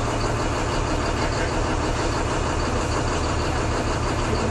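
A vehicle engine idling, its low rumble under the steady rushing noise of heavy rain.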